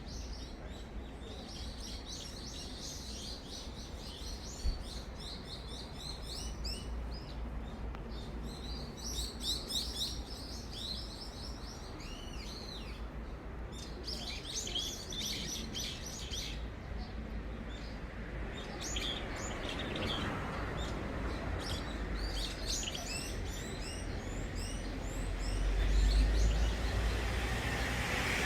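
Small birds chirping and twittering in quick repeated bursts, with a steady outdoor background. Later the chirps thin out and a broad rushing noise swells, loudest near the end.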